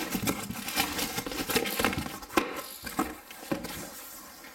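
Cardboard shipping box being opened by hand: its flaps scrape and the crinkled paper packing inside crackles in a dense run of rustles, quieter near the end.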